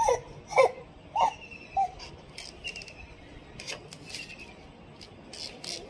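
Cardboard parcel box being handled and opened: scattered rustles and scrapes of the flaps and label. In the first two seconds there are four short rising-and-falling vocal calls.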